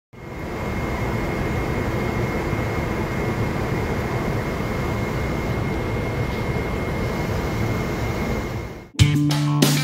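Steady jet roar of an airliner flying high overhead, heard from the ground, with a faint thin high whine over it. It fades in at the start and cuts off about nine seconds in, where music with guitar and drums begins.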